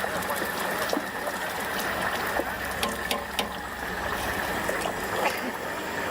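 Hot oil bubbling steadily in a deep fryer as tofu fries, with scattered sharp clicks.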